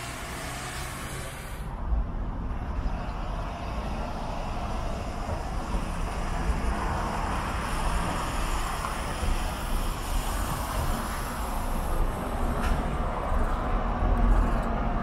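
City buses driving through a junction: a steady low engine rumble with tyre and road noise, growing loudest near the end as a Mercedes-Benz Citaro passes right by.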